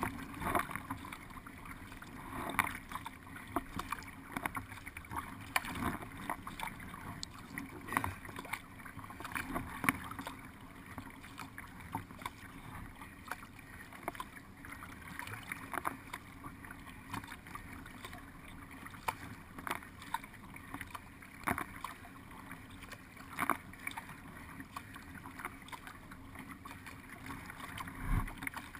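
Creek water splashing and lapping along the hull of a paddled racing boat under way, with irregular louder splashes every second or so.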